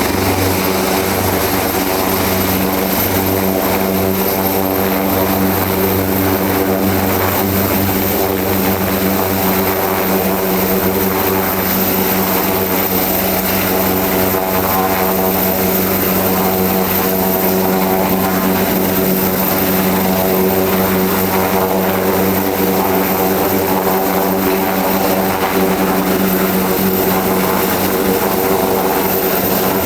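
Leonardo AW189 helicopter with its twin turboshaft engines running at a steady speed: a high turbine whine over a steady low rotor hum.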